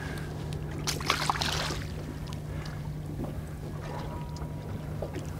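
A boat's motor idling with a low, steady hum, with a few faint clicks and knocks about a second in.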